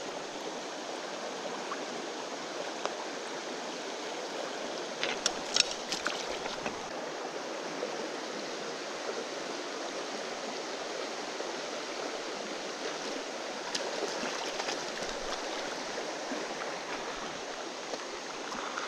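Shallow rocky creek rushing and babbling steadily over stones in a riffle, with a few short sharp clicks about five to six seconds in.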